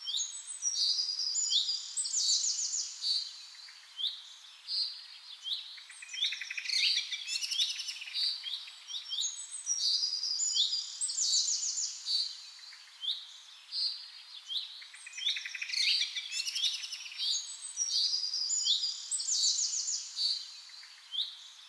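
A songbird singing, repeating the same phrase of sharp down-slurred whistles and quick trills again and again, over a steady hiss.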